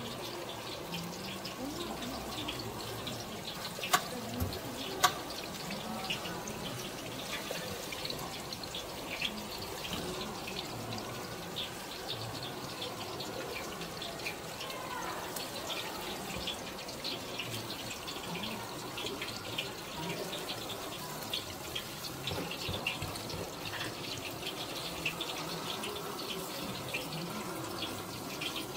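Sauce-glazed chicken thigh skewers sizzling on a hot wire grill, a steady hiss full of fine crackles, with two sharp clicks about four and five seconds in.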